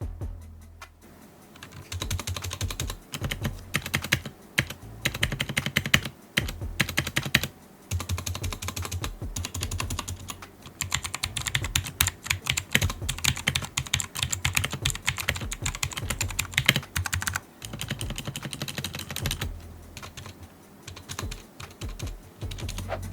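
Typing on a Cosmic Byte CB-GK-16 Firefly mechanical keyboard with clicky blue switches: fast runs of sharp key clicks, broken by a few short pauses.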